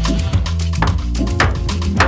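Background music with a steady beat, bass and drums.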